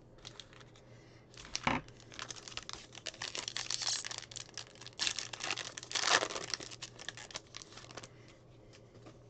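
Foil wrapper of a trading-card pack crinkling and tearing as it is ripped open by hand. A short knock comes near the start, then a dense crackle that is loudest about four and six seconds in.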